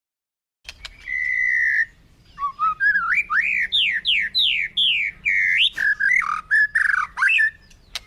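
A bird singing: after a click, one held whistled note of about a second, then a quick run of clear whistled notes sweeping up and down, about two a second.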